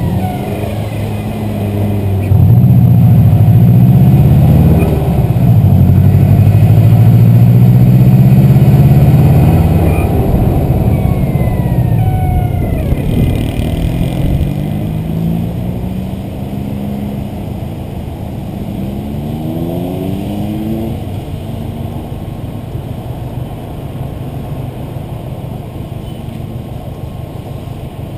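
Turbocharged Subaru WRX flat-four engine pulling hard under load, then easing off. About halfway through, the duck call fitted to the GReddy blow-off valve gives a short falling squawk as the valve vents. The engine then runs quieter, with one brief rev-up before settling.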